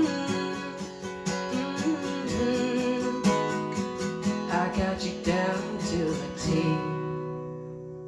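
Acoustic guitar strumming the closing bars of a song, ending on a final chord that rings out and fades from about six and a half seconds in.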